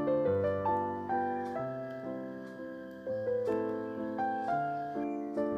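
Background piano music: a melody over held low notes, each note struck and fading.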